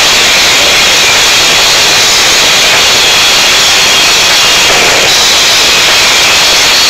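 Very loud heavy metal band music overloading a phone's microphone into a steady, distorted roar with no distinct notes or beat.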